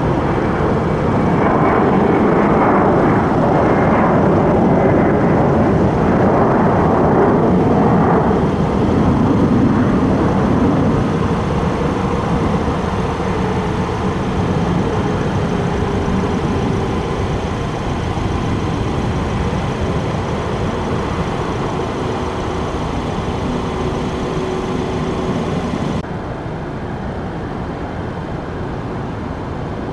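Jet airliner engines rushing loudly as the aircraft passes, with a faint whine that sinks slightly in pitch. The noise is strongest in the first third and then slowly fades, dropping abruptly near the end.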